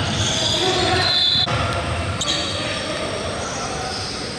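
Basketball shoes squeaking on a gym floor, several short high squeaks, with a sharp knock about two seconds in.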